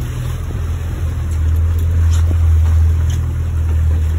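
Fishing boat's engines running steadily while trolling: a deep hum that gets a little louder about one and a half seconds in, with a faint rush of water and wind over it.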